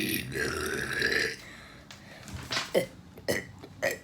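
A person burping repeatedly on purpose: one long drawn-out burp that ends about a second and a half in, then four short burps in quick succession.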